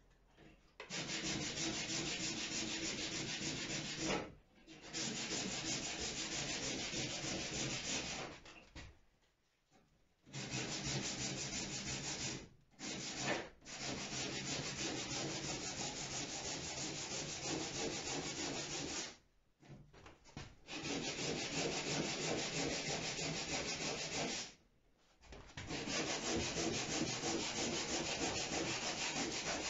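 Sanding of wood along the gunwale of a wooden boat hull, a steady rasping in long runs of several seconds with a few short pauses between them.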